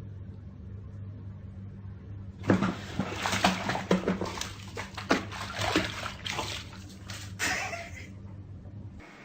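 Water splashing and sloshing in a small tub, in an irregular run of splashes starting about two and a half seconds in and dying away near the end, over a steady low hum.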